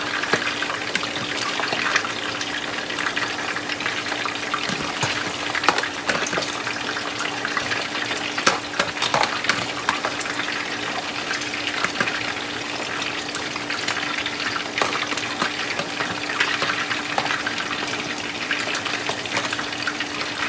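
Whole fish pan-frying in hot oil: a steady sizzle with frequent sharp crackles and pops, over a constant low hum.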